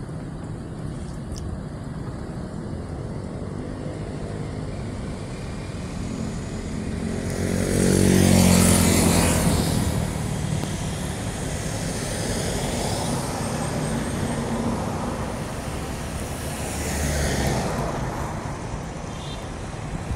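Steady road and engine noise from a moving car. A louder vehicle swells past about eight seconds in, with a smaller pass near the end.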